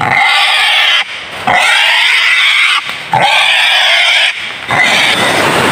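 A freshly caught live wild boar squealing as it is carried by hand: three loud squeals, each over a second long, with short breaks between. Near the end the rush of a rocky stream takes over.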